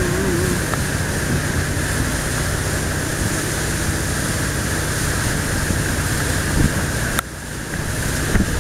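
Wooden riverboat's engine running steadily underway, with water rushing past the hull and wind on the microphone. The sound drops briefly about seven seconds in, then returns.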